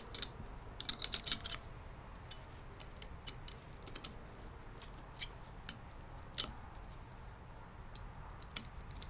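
Light metallic clicks and clinks of steel clutch plates being stacked into a limited-slip differential casing: a quick run of clicks about a second in, then single clicks every second or so.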